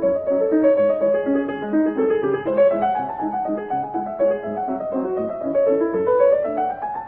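Piano music: flowing broken-chord figures of evenly struck notes, and near the end a quick run of notes climbing upward.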